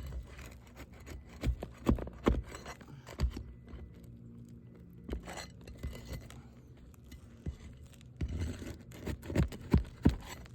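A hand tool scraping and knocking against brittle asphalt shingles as a damaged shingle is worked loose, in irregular scrapes with a few sharp clicks, several together about two seconds in and again near the end.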